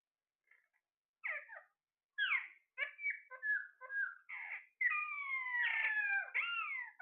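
A pet parrot calling: a string of short chirps and squawks starting about a second in, then a longer whistle sliding down in pitch about five seconds in, followed by another quick note.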